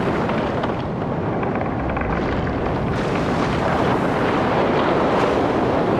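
Designed meteorite sound effect: layered background rumbles playing as one dense, steady rumble.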